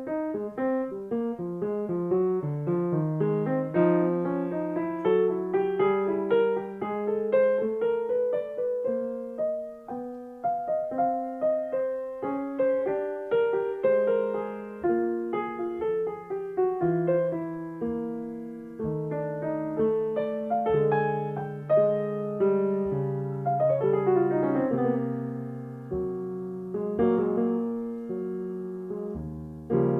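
Solo piano music: a flowing run of notes played continuously.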